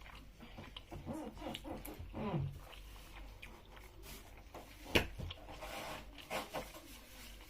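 Eating at a table: scattered clinks of cutlery on dishes, one sharp clatter about five seconds in, with faint voices from the room.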